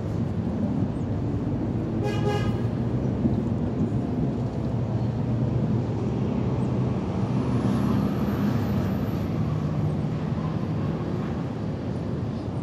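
Steady road traffic, the low rumble of passing car and truck engines, with a short horn toot about two seconds in.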